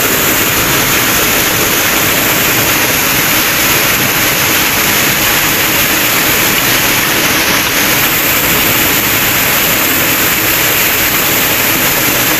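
Small waterfall pouring into a rock pool: a loud, steady rush of falling and churning water.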